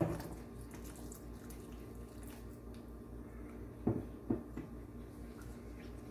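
Water poured from a mug into a saucepan of thick prawn curry, splashing in from the start and trailing off over the first couple of seconds. It is followed by two short knocks about four seconds in.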